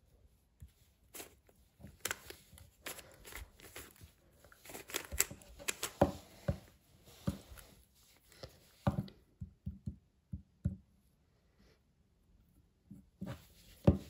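A puzzle cube faced with Lego-type plastic bricks being turned by hand, its layers clicking and clacking in quick runs. The turning thins out after about nine seconds and pauses, then a few more turns come near the end, finishing on one sharp clack.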